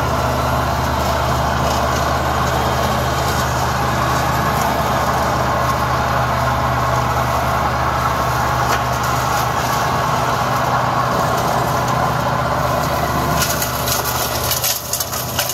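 Arbos 3050 compact tractor's diesel engine running steadily under load, driving an Agricom PTO flail mower that is cutting grass, heard as a steady engine hum under the rush of the mower. The level dips and wavers near the end.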